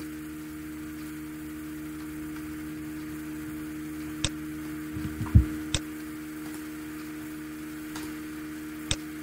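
Steady low electrical hum with a few sharp computer-mouse clicks and a dull thump about halfway through.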